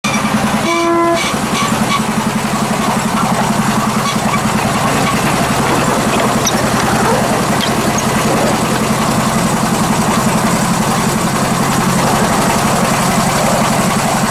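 Engine of a miniature-railway locomotive running steadily with a fast, even pulse as the train travels along the track. A short horn toot sounds about a second in.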